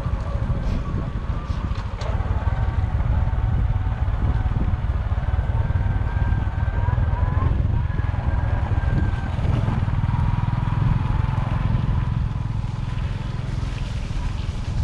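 Motorcycle running while being ridden, a steady low rumble with a faint whine.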